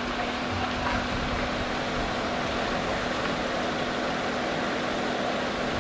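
Steady drone of an engine or machinery holding one low tone, over a constant wash of outdoor noise.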